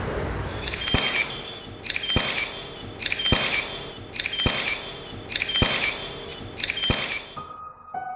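A camera shutter clicking six times at an even pace of about once a second, each click with a short bright mechanical rattle. Near the end a few soft piano-like notes of music begin.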